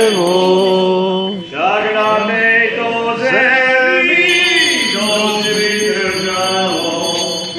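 Voices singing a slow chant in long held notes, with a short break for breath about a second and a half in.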